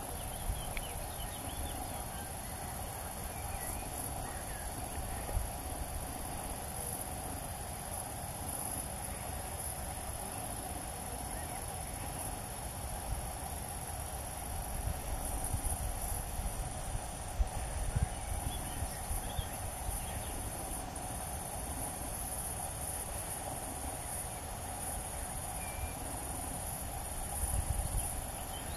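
Steady high-pitched chirring of meadow insects such as crickets, with a low rumbling noise underneath.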